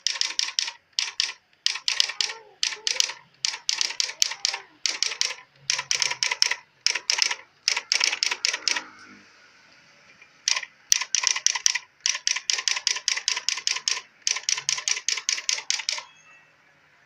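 Samsung SQ-1200 electronic typewriter striking characters in quick runs of sharp clicks. There is a short pause with a faint steady whir about nine seconds in, then a long fast even run of strikes that stops about a second before the end.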